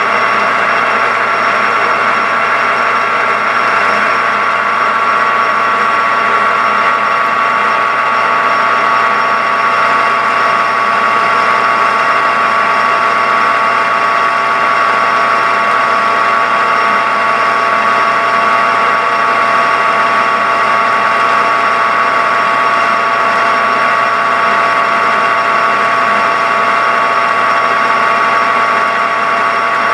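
Metal lathe running steadily while a turning tool takes a cut along a mild steel bar. The motor and gear train give an even, unchanging whine with several steady tones.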